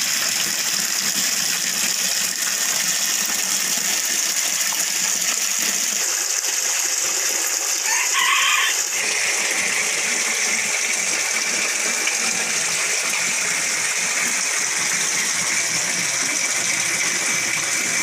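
Water gushing steadily out of the PVC outlet pipes of a pond filter box and splashing into the pond below. About eight seconds in, a chicken gives one short call.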